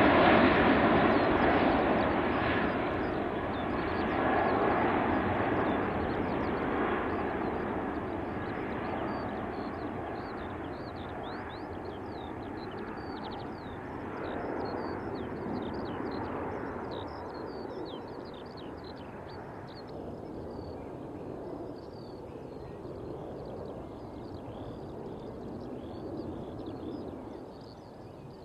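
Boeing 747-400's four jet engines fading steadily as the airliner climbs away after takeoff. Small birds chirp faintly throughout, heard more plainly in the second half as the jet noise dies down.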